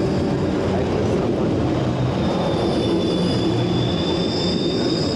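A tram rolling past with a steady low rumble. About two and a half seconds in, a thin high wheel squeal on the rails starts and keeps going.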